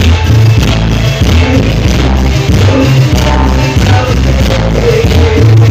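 Live cumbia band playing through a loud PA, with a heavy bass beat about twice a second.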